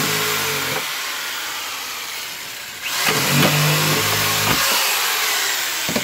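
Handheld corded electric power tool running in two short bursts, its motor winding down about a second in, then running again from about three seconds to four and a half seconds in.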